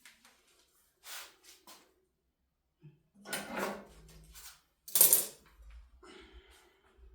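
Small hard objects clinking and clattering as they are handled, in a few separate bursts. The loudest clatter comes about five seconds in.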